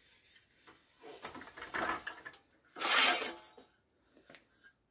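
Metal clanking and scraping as a freshly bent steel repair panel is handled at a hand-operated sheet-metal folder, with a louder metallic rattle about three seconds in and a few light clicks near the end.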